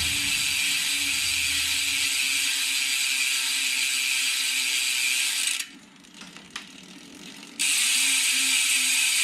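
Halo Vortex rear hub's freehub ratcheting as the wheel spins freely, a loud, dense, high buzz. It stops about five and a half seconds in, a few faint clicks follow, and it starts again about two seconds later.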